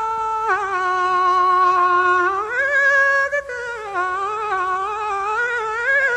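Wordless hummed or sung melody: one voice holding long notes, rising to a higher note about two and a half seconds in, then swaying up and down with a wavering vibrato.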